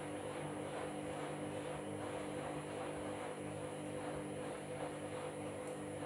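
Candy front-loading washing machine tumbling a load of bedding on its Duvet and Quilts wash: a steady motor hum with the swish of the wet load as the drum turns.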